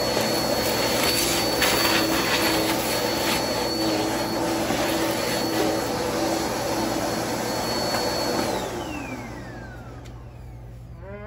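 Upright bagless vacuum cleaner running with its hose attachment, sucking up bits of debris from carpet, with a few sharp clicks as grit rattles up the hose. About eight and a half seconds in the motor is switched off and its high whine falls away as it spins down.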